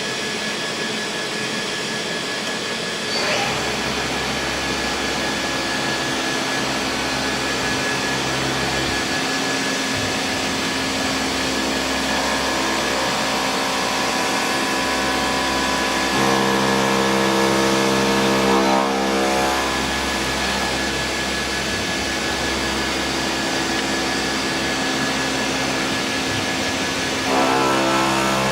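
Mazak VTC-20C vertical CNC machining center running with a steady mechanical whir and a constant high tone. Its pitch shifts in steps about 3, 16 and 27 seconds in as it changes speed.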